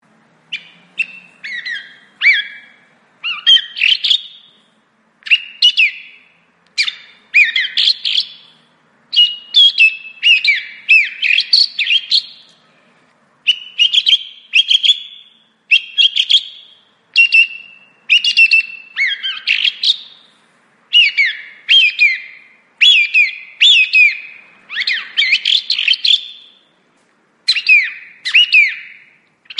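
Song thrush singing: a steady series of short, loud phrases of clear whistled and sharp notes, each a second or so long, with brief pauses between them.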